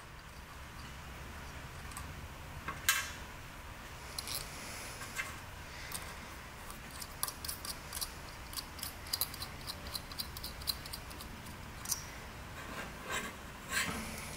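Small metallic clicks and rubbing as crimped wire terminals are handled and pushed onto the terminal studs of an engine's ignition coil, one sharper click a little under 3 s in, over a faint low steady hum.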